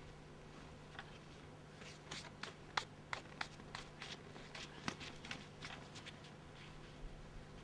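Footsteps in snow: a run of quick, faint steps, about three a second, starting about a second in and stopping near the end, over a steady low hum.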